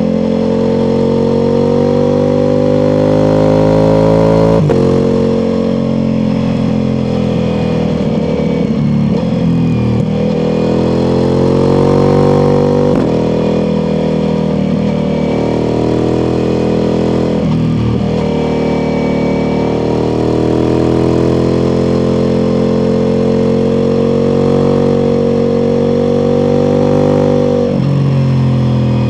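Ducati Multistrada V4 Pikes Peak's V4 engine through an Akrapovic exhaust, ridden hard on the road: the engine note climbs under throttle and drops back sharply at each shift or roll-off, several times over, then holds a long, fairly steady pull before dropping again near the end.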